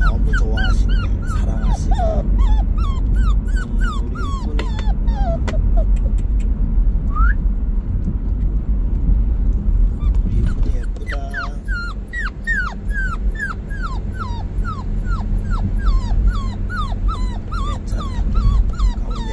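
Young puppy whimpering in a quick series of short, high, falling cries, with a pause of a few seconds midway; these are the distress cries of a pup newly taken from its family. A steady low rumble of the car runs underneath.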